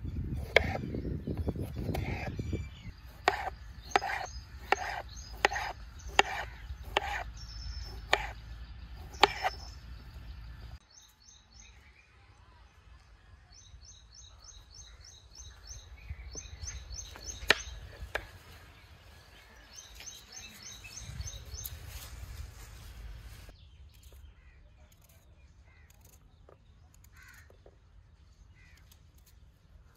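Knife slicing tomatoes on a cutting board: a regular series of sharp knocks, roughly two a second, that stops suddenly about ten seconds in. Then birds call outdoors in short runs of quick high chirps.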